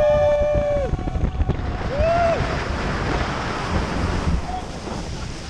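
Wind buffeting the microphone with a constant low rumble. Over it come two pitched calls: a held one about a second long at the start and a shorter rise-and-fall about two seconds in.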